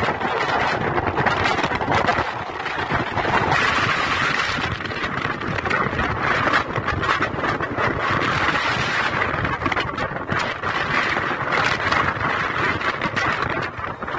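Strong wind of a dust storm blowing across a phone's microphone: a continuous rushing noise that swells and eases.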